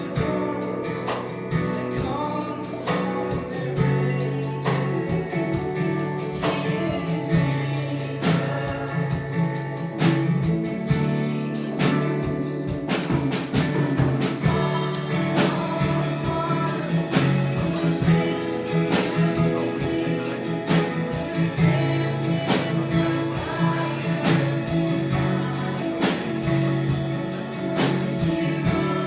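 Live worship music: singing over strummed guitar with a steady beat.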